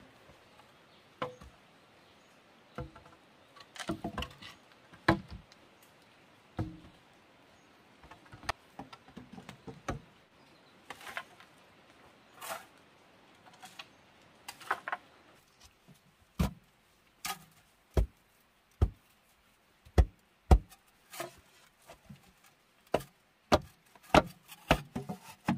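Bamboo poles knocking and clacking as they are handled and set against the shelter's earth walls. Scattered light clicks at first, then from about halfway a run of sharper, deeper knocks roughly one a second.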